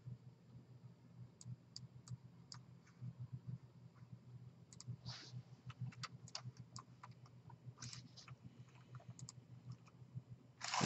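Computer mouse clicking: scattered single sharp clicks, with a louder quick cluster of clicks near the end, over a faint low hum.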